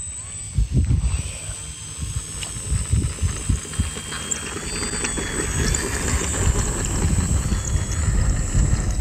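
Wind buffeting the microphone in uneven gusts that grow louder toward the end, over a faint steady high-pitched whine.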